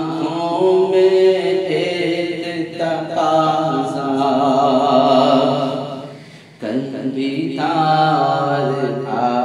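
Male voice chanting a naat, an Urdu devotional poem, in long drawn-out wavering notes over a steady low hum. The voice fades out briefly about six seconds in, then starts a new phrase.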